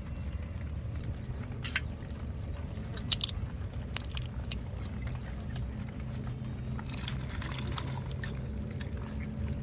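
Crab shells and legs being handled and snapped while the crabs are cleaned by hand: scattered sharp clicks and cracks over a steady low hum.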